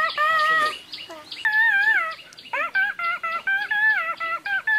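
A man imitating bird calls with his mouth: quick runs of short, wavering whistle-like notes that bend up and down in pitch, broken by brief pauses about one and two seconds in.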